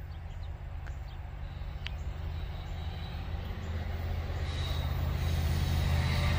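Diesel locomotives of an approaching Norfolk Southern freight train, a low steady engine drone growing steadily louder as the train nears.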